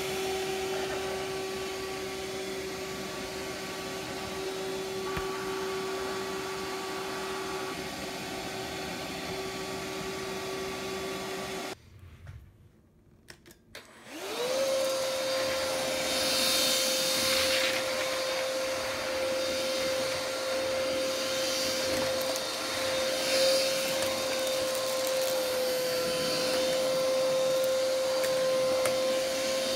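Philips FC6823 cordless stick vacuum running with a steady motor whine. About twelve seconds in it cuts out for a couple of seconds, then starts again with a quick rising whine and settles at a higher, louder note, with a hiss of suction that swells and fades as it is worked over the floor.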